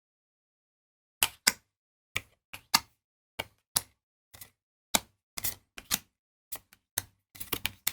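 Trading cards being handled and flipped through: irregular sharp clicks and snaps, some in quick clusters, with dead silence between.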